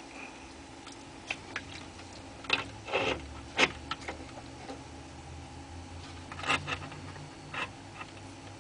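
RCA cable plugs clicking and scraping against the jacks of an organ's circuit board as they are handled, a scatter of irregular small clicks with the busiest bursts about three seconds in and again near six and a half seconds, over a faint low hum.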